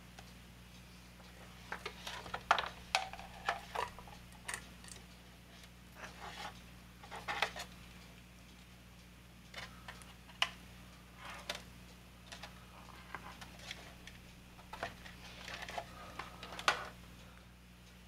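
Hands handling the plastic model hull and bundles of thin wires: irregular clicks, taps and short rustles, the loudest about two and a half seconds in and near the end, over a low steady hum.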